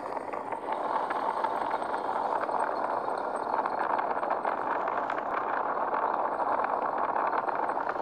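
KTM Duke motorcycle riding at speed: a steady rush of engine and wind noise.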